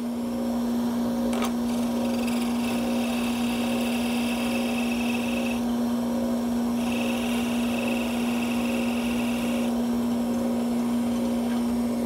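A drill press and dust collector running with a steady hum. A carbide-insert pen mill cuts into a Brazilian rosewood pen blank in two spells, from about two to five and a half seconds in and again from about seven to ten seconds in, trimming the blank flush with its brass insert.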